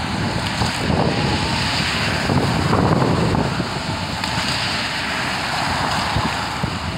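Diesel engines of a CAT 953D track loader and a John Deere 130G excavator running while they work demolition debris, with wood and rubble crunching and clattering. A car passes on the road, and the noise swells for a couple of seconds near the start.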